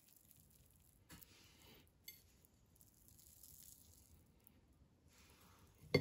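Faint handling sounds: soft rustling, with a few small clicks and a sharper click near the end.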